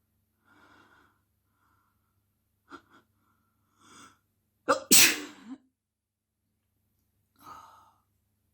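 A single loud sneeze, deliberately induced, about five seconds in, led by a few faint gasping breaths and a quick in-breath, with one softer breath near the end.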